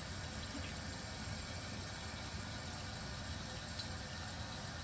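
Fluidmaster 400H Performax toilet fill valve refilling the tank after a flush: a steady rush and hiss of water flowing in, with the refill tube feeding the overflow pipe to fill the bowl.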